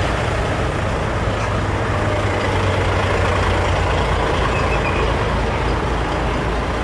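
Articulated lorry's diesel engine running close by, a steady low hum under traffic noise as the lorry and vans edge along the narrow street.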